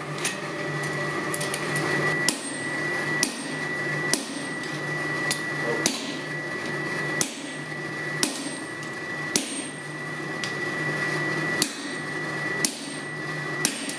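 Hammer blows on a white-hot billet of layered EN42J and 15N20 steel on an anvil, about a dozen strikes at roughly one a second: forge-welding the Damascus stack. A steady hum runs underneath.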